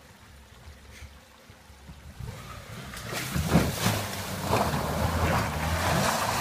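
Lada 21099's engine running under load as the car ploughs through a muddy puddle, water splashing against the front of the car. The engine and the splashing grow louder from about three seconds in.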